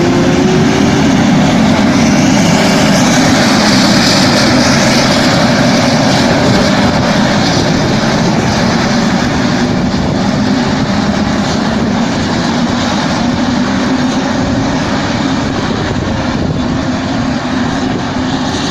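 Tractor and ROC RT 1000 windrow merger running steadily, a loud, even machine noise over a low drone. A brighter hiss swells a couple of seconds in and fades again.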